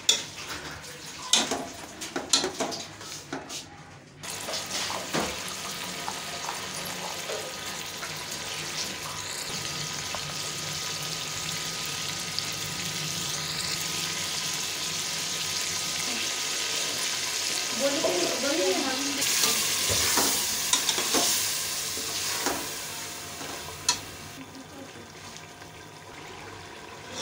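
Meat and tomato paste frying and sizzling in an aluminium pot, the hiss swelling through the middle and easing off near the end. In the first few seconds a metal ladle knocks and scrapes against the pot as the mixture is stirred.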